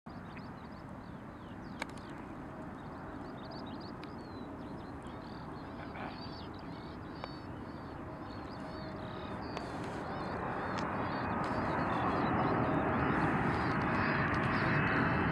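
Birds chirping continuously while the distant noise of a Boeing 777-300ER's GE90 jet engines on final approach swells steadily louder through the second half as the aircraft closes in.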